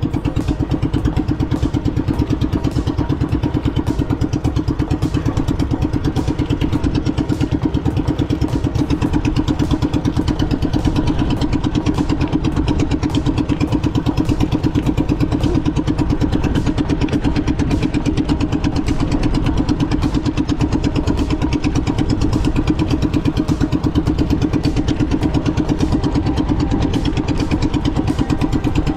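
Outrigger boat's engine idling steadily, a fast, even chugging throughout.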